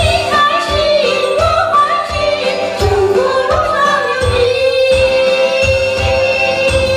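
A woman singing a pop-style song through a microphone over accompaniment with a steady beat. About halfway through she settles on one long held note.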